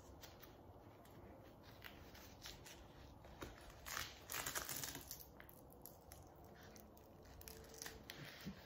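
Faint rustling and crinkling of gloved hands wrapping a roller bandage around a forearm, with a louder rustle about four seconds in.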